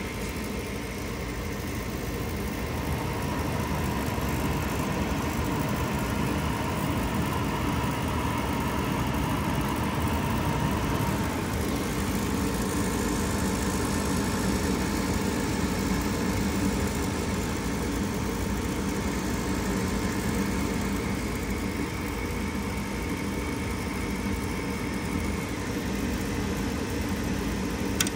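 A 2007 Heil gas furnace's draft inducer motor running at startup: a steady motor hum with a faint whine. It grows louder over the first few seconds, then holds even.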